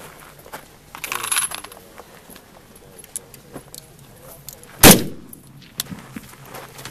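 A single rifle shot about five seconds in, sharp and loud with a short echoing tail, fired during a rapid-fire match string. Before it, about a second in, there is a brief burst of metallic clinking and rustling.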